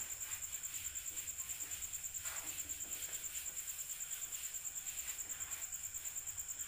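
A cricket chirping steadily in a fast, even, high-pitched pulse, with faint soft rubbing as a bare hand wipes marker off a whiteboard.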